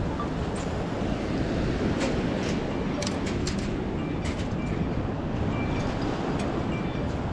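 Steady rushing of water churning through a spillway, with scattered light clicks and taps over it.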